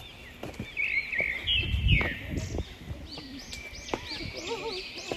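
Birds chirping, with many quick rising-and-falling chirps overlapping throughout. A brief low rumble about two seconds in is the loudest moment.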